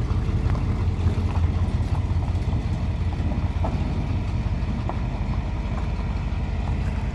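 1972 Ford F-250 truck engine running steadily, starved of fuel by a carburettor that is not passing enough gas, which the owner puts down to a clog.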